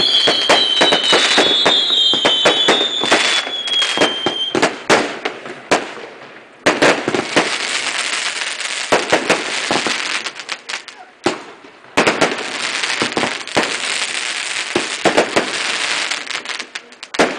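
Fireworks going off in a rapid barrage. Many sharp bangs come with shrill whistles that slide slightly down in pitch over the first few seconds. Then come waves of dense crackling, broken by sudden sharp reports about twelve seconds in and again near the end.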